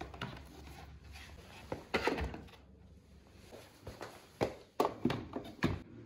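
Footsteps and several sharp knocks and thumps, a cluster about two seconds in and a quicker run of four or five near the end, over a low steady hum.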